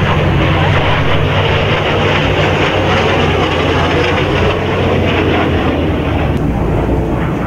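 Lockheed T-33 Shooting Star's single turbojet engine, a steady loud jet noise as the jet banks past in a low pass.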